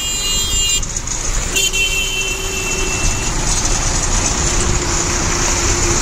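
Diesel goods truck pulling away, its engine running under a steady road-and-engine noise, with two blasts of its horn: a short one at the start and a longer one about a second and a half in.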